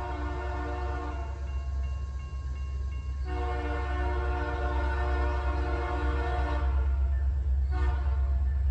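Norfolk Southern locomotive's Nathan P5 air horn with a fouled chime, sounding a grade-crossing signal. A long blast ends about a second in, a second long blast runs from about three seconds to nearly seven, and a short blast comes near the end, with its lowest note fluttering. A steady low rumble sits underneath.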